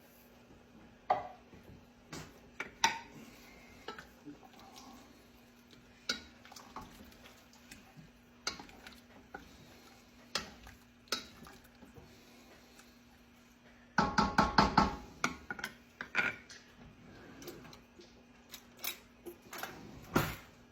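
Metal utensil clinking and knocking against a soup pot in scattered single strikes, with a quick run of rapid ringing knocks about two thirds of the way through and a last loud knock near the end.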